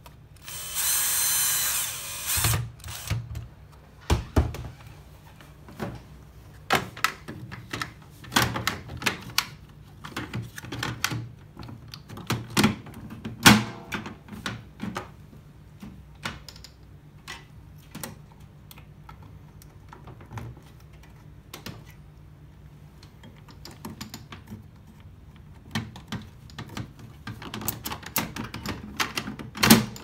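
Cordless drill-driver running for about two seconds near the start, driving a screw into a microwave's plastic control-panel housing, followed by scattered clicks and knocks of plastic and metal microwave parts being handled and refitted.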